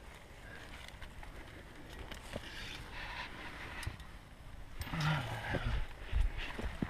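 Wind rumbling on the microphone, with scattered clicks and scrapes of a climber moving on rock, and a short low grunt about five seconds in.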